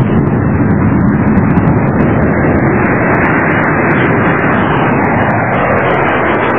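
Radio-drama sound effect of a jet plane in flight: a steady rushing engine noise, on an old recording that cuts off the high tones.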